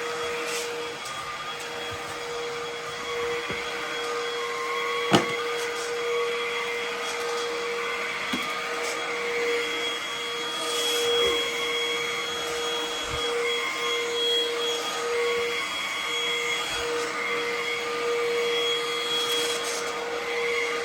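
Ozito PXC 18V cordless stick vacuum running steadily on its eco setting, with a constant motor whine that shifts slightly as it is pushed around. A single sharp click about five seconds in.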